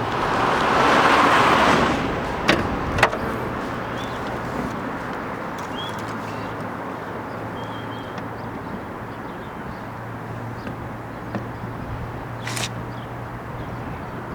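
Car running with a steady low hum. A whoosh swells and fades in the first two seconds, then come two sharp clicks about half a second apart and another click near the end.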